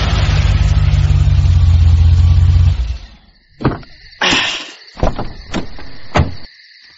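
Car engine and road noise running steadily, cut off about three seconds in as the car stops. Then a handful of sharp clicks and knocks, over a steady high chirring of crickets.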